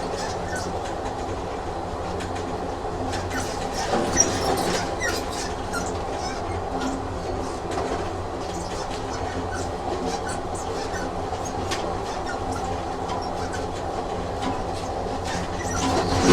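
Train running on rails: a steady rumble and hum with scattered clicks of the wheels.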